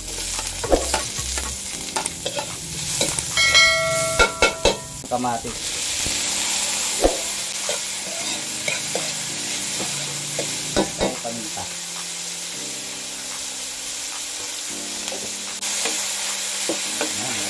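Garlic, ginger, lemongrass, onion and then tomatoes sizzling in hot oil in an aluminium wok, stirred with a metal ladle that clicks and scrapes against the pan. There is a brief metallic ringing about four seconds in. The sizzle then grows louder and steadier once the tomatoes go in.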